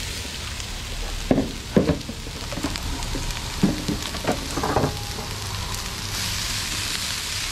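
Broccoli, onion and pepper strips sizzling steadily in oil on a hot steel flat-top griddle. Several short knocks and scrapes from a spatula and bowl against the griddle plate fall between about one and five seconds in.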